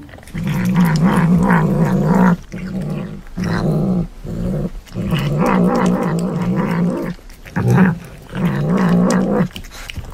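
Tabby cat growling over its food as it eats, a wavering low growl in long stretches broken by short pauses.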